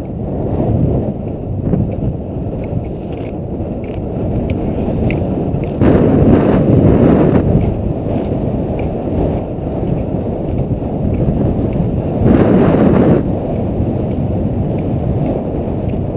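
Mountain wind buffeting a GoPro's microphone: a steady low rumble that swells in two stronger gusts, about six seconds in and again about twelve seconds in.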